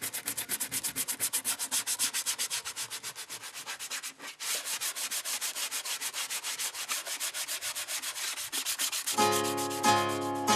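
Sandpaper rubbing back and forth over the bare wooden body of a hand-built guitar-shaped string instrument, in fast, even strokes with a brief pause about four seconds in. Near the end, plucked-string music comes in.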